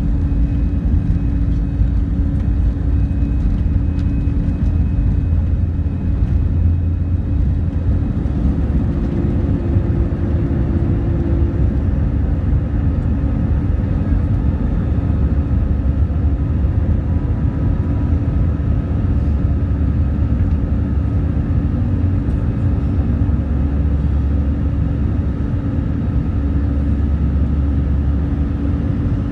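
Airliner's jet engines at takeoff power heard from inside the cabin: a loud, steady hum over a low rumble through the end of the takeoff roll, lift-off and initial climb.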